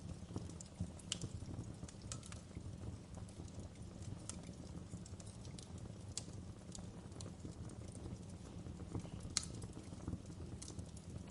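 Wood fire crackling in a fireplace: irregular sharp pops and snaps over a steady low rumble of flames, with one louder pop about nine seconds in.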